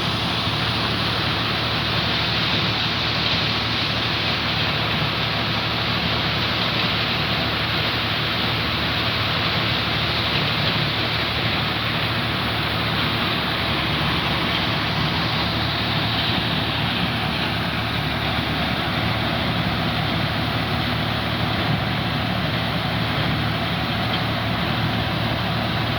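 Tractor-powered maize sheller running steadily: a constant low engine drone under a loud, even mechanical hiss that does not change.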